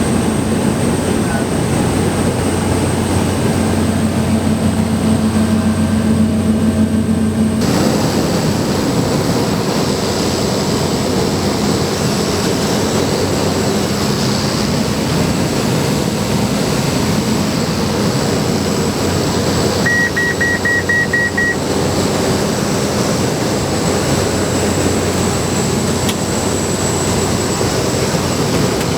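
Steady drone of a Cessna 208B Grand Caravan's single Pratt & Whitney PT6A turboprop engine and propeller heard inside the cabin in flight. The sound changes abruptly about a quarter of the way in, and near the two-thirds mark a quick series of about six short high beeps sounds.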